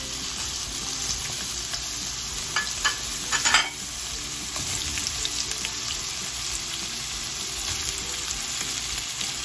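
Diced bacon sizzling as it browns in hot oil in a nonstick pan, a steady frying hiss. A few sharper crackles come about three seconds in.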